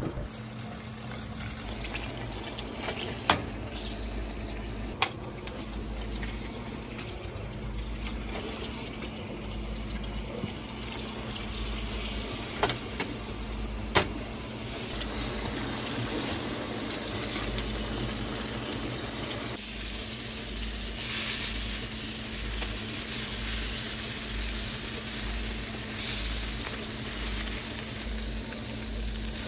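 Food sizzling in a frying pan, with a few sharp clicks in the first half. About two-thirds of the way through, the sizzle turns louder and hissier.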